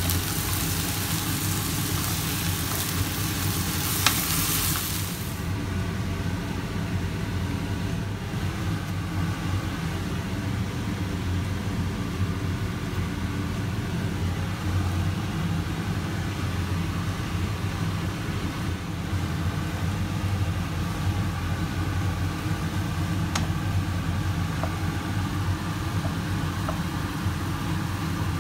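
Beef pieces sizzling as they brown in hot oil in a wok, stirred with a wooden spatula. The sizzle is loudest for the first five seconds or so, then settles into a steady frying hiss over a constant low hum.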